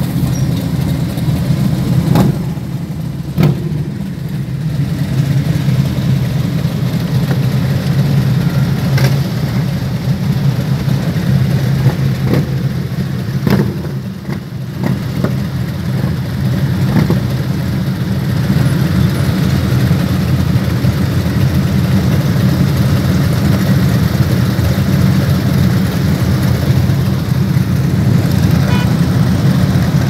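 Harley-Davidson motorcycles' V-twin engines idling and running in slow traffic, heard from inside a car, with a few short knocks scattered through.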